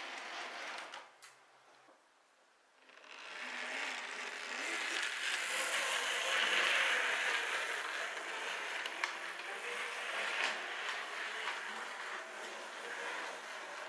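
O scale model tram running on its track: the electric motor and gears whirring and the metal wheels rolling on the rails. The sound fades to near quiet about a second in, then builds again from about three seconds and is loudest midway as the tram comes close.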